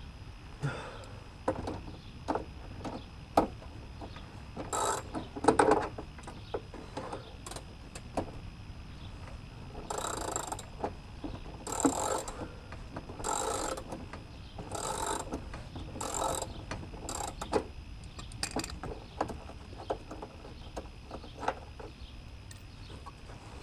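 Hand tools worked on the car's metal parts: scattered clicks and knocks, then a run of short ratcheting strokes about every second and a half from a ratchet wrench being swung on a bolt.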